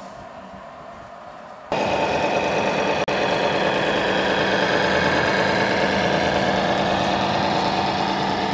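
Scale RC truck's sound module playing a diesel engine idling through a small speaker. It is steady and evenly pitched, and cuts in abruptly about two seconds in, with a brief dropout shortly after.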